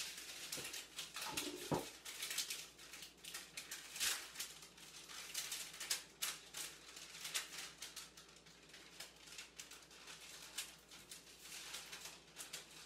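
Parchment paper rustling and crinkling as the top sheet is handled and peeled back off rolled-out cookie dough, with a couple of soft knocks from the rolling pin about a second in.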